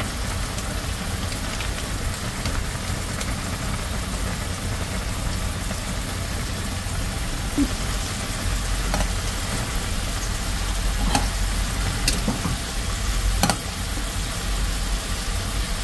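A milk-and-sour-cream sauce sizzling in a frying pan while a pot of ramen boils, a steady frying hiss. A few sharp clicks of a utensil against the pans come in the second half.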